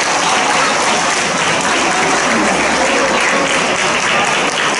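Audience applauding steadily after a string ensemble's performance.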